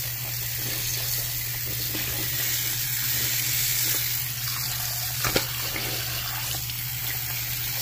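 Tap water running into a sink and splashing onto a soaked cloth shirt, a steady hiss, with a single sharp knock about five seconds in.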